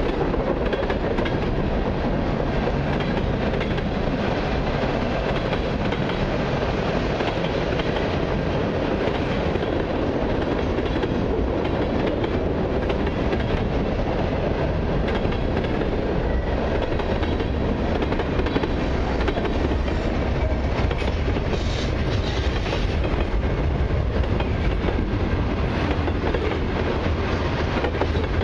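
Freight cars of a CN mixed freight train rolling past: a steady rumble of steel wheels on the rails.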